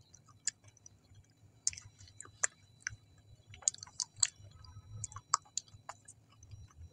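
Close-miked mouth chewing: irregular sharp clicks and smacks as food is chewed.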